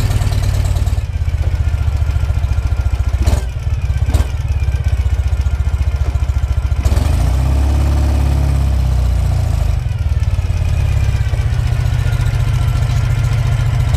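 Ural motorcycle's flat-twin engine idling with a steady low beat. Two sharp clicks come about three and four seconds in, and about halfway through the engine note rises and falls back.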